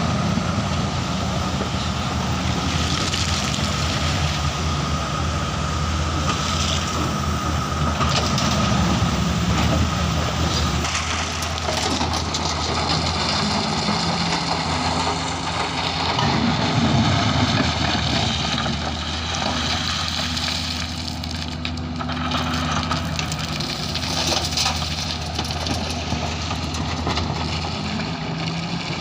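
Diesel excavator engine running steadily under load while gravel and stone crunch and clatter as they are scooped and loaded.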